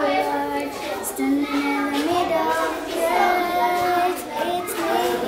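A child singing a song, stepping between long held notes.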